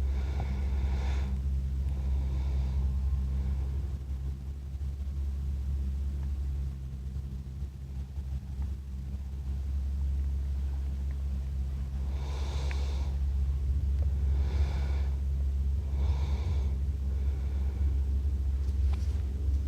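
A sleeping person snoring and breathing noisily: two breaths in the first few seconds, a quieter stretch, then a run of snoring breaths about every one and a half to two seconds in the second half, over a steady low hum.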